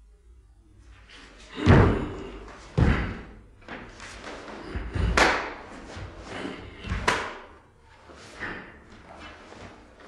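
Bare feet thudding onto a wooden floor and a karate gi snapping with each technique of Heian Yondan. About five sharp strikes come a second or two apart, with quieter shuffling between them.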